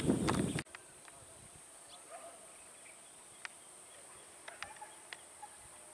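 Wind buffeting the microphone, cut off abruptly less than a second in. Then a quiet outdoor ambience: a steady high-pitched insect drone, with a few faint bird chirps and scattered sharp ticks.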